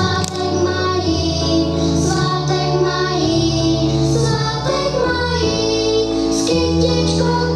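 A children's song: young voices singing a melody over instrumental accompaniment with steady sustained bass notes.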